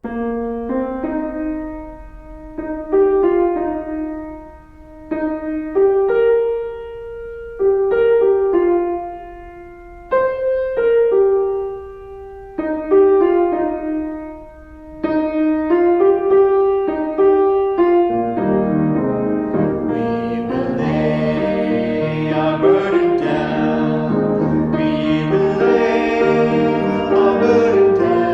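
Piano playing slow chords, each struck and left to ring, then a fuller, busier texture from about 18 seconds in.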